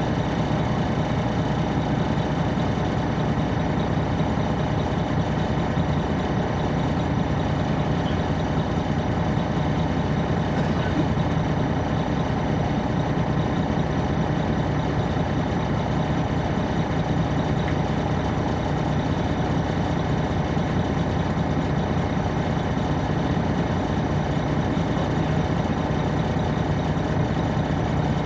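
2002 MCI D4500 coach's Detroit Diesel Series 60 inline-six diesel running steadily, heard from inside the bus, with an even, unchanging engine pitch.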